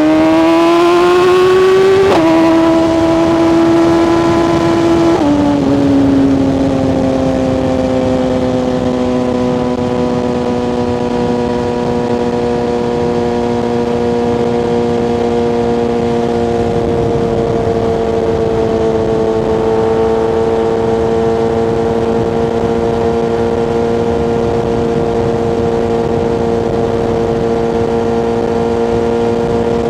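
BMW S1000RR sportbike's inline-four engine under way: revs climbing for about two seconds, two gear changes at about two and five seconds in, then a steady cruise with the engine note easing slightly and holding.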